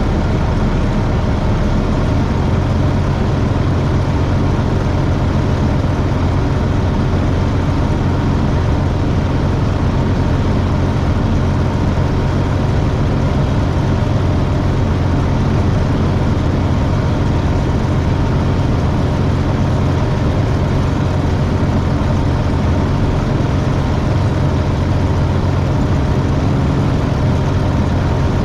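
Light aircraft engine, the RV-12iS's Rotax 912 iS, running steadily at an even power setting.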